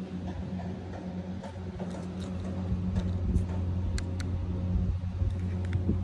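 Small plastic RC car being handled and turned over in the hands, giving a few light clicks and taps, over a steady low hum.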